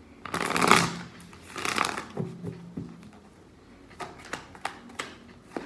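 A deck of tarot cards being shuffled by hand: two loud rushes of cards in the first two seconds, then a run of light, sharp card clicks near the end.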